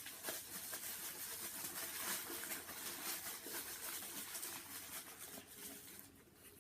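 Packaging rustling and crinkling as it is pulled and unwrapped by hand, a steady crackle dotted with small ticks that fades slightly near the end.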